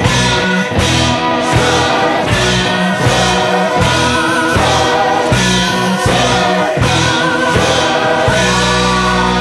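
Background music: a song with sung vocals over a steady beat.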